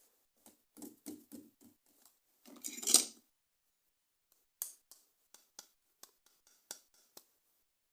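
Close-up handling of plastic toy packaging and parts: a run of small clicks and rustles, a louder scrape about three seconds in, then a string of sharp clicks.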